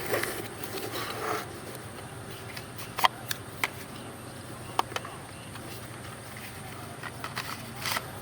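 Handling noises of packaging and parts during an unboxing: a brief rustle, then a few scattered sharp clicks and taps, with more clicks near the end.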